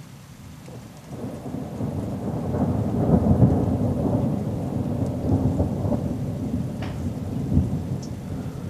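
Thunder rolling: a low rumble that swells from about a second in, is loudest around three seconds in, and slowly fades with a last low jolt near the end.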